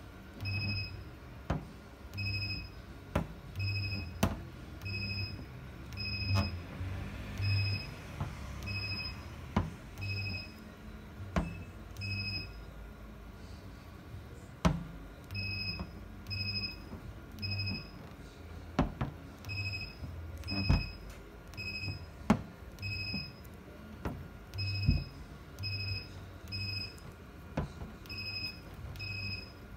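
A magnetic dent-repair tool pulsing, about once a second: each pulse is a short electronic beep over a low hum, with a break of a couple of seconds midway. Sharp clicks and knocks come now and then between the pulses.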